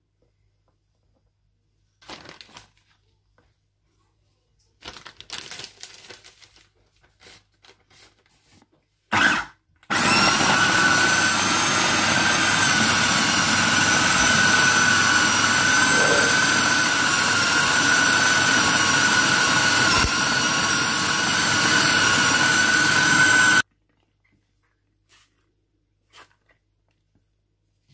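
Electric food processor blending. A brief pulse of the motor comes about nine seconds in, then the motor runs steadily for about fourteen seconds with a steady whine and cuts off abruptly. Before the pulse there are a few scattered light sounds of the ingredients being handled in the bowl.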